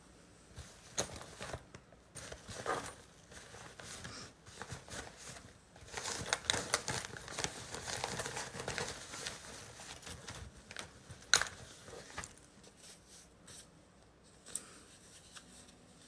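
Handling noise close to the microphone: rustling with scattered clicks, busiest in the middle, with one sharp click about eleven seconds in.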